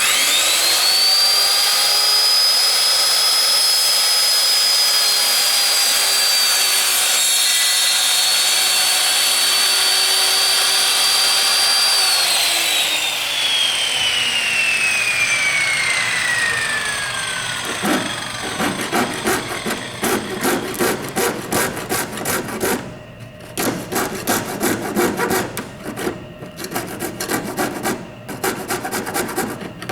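Electric saw starting and cutting acrylic sheet for about twelve seconds, its whine dipping a little under load, then switched off and winding down in a long falling whine. Then come quick, even scraping strokes, about three a second, like hand sawing or rasping the plastic.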